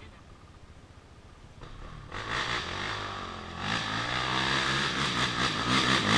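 Dirt bike engine revving on a trail. It is faint for the first two seconds, then comes in and gets louder, with the revs rising and falling.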